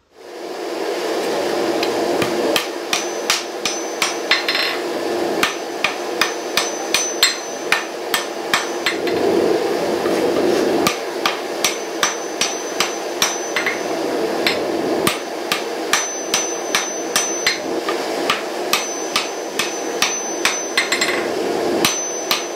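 Hammer blows on hot steel at the anvil, forge welding the pie-cut tip of a multi-bar sword billet so the edge steel runs out to the point. The blows are regular, about two a second, and start a couple of seconds in, over a steady rushing noise.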